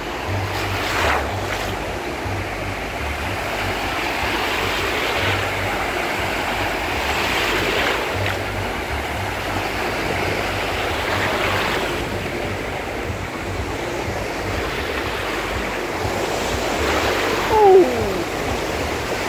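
Small surf waves breaking and washing over sandy shallows: a steady rush that swells every few seconds. Near the end a brief high call rises and falls over it.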